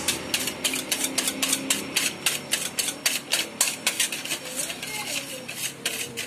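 Wire whisk beating eggs in a stainless steel bowl: quick, even clicking of the wires against the metal, about six strokes a second.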